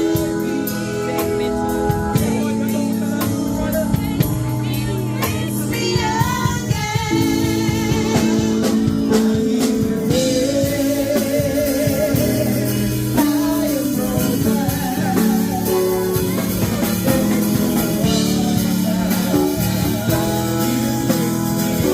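Gospel music: a singer with a band of drums and guitar, the voice holding long notes with a wavering vibrato.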